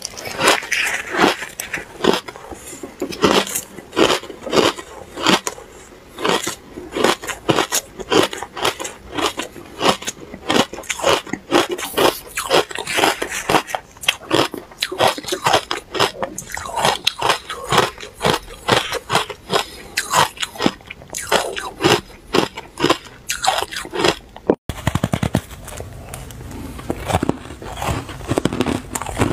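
Close-up crunching and chewing of powdery freezer-frost ice, a rapid run of crisp crunches one after another. Near the end the sound breaks off for an instant and quieter, softer chewing follows.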